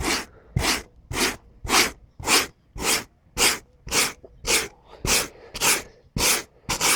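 Wire brush scrubbing the old crumbling foam off a car headliner board, in rhythmic scratchy strokes about two a second.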